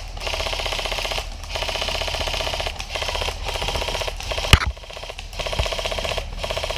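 Airsoft electric rifle firing long full-auto bursts: rapid, even clicking of the gearbox cycling, broken by short pauses between bursts. A single sharp crack stands out about four and a half seconds in.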